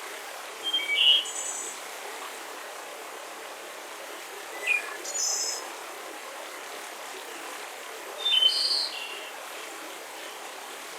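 Small birds chirping in three short phrases, about a second in, in the middle and near the end, over a steady hiss of forest ambience.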